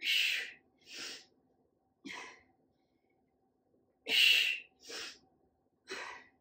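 A woman breathing hard through dumbbell repetitions: six sharp breaths, with loud forceful exhales at the start and about four seconds in, each followed by quieter breaths.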